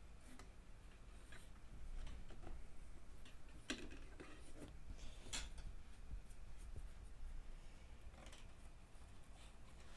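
Thin laser-cut wooden paint-rack parts tapping and scraping lightly against each other as a slotted support strip is fitted onto the shelves: faint scattered clicks, with two sharper ones about four and five and a half seconds in.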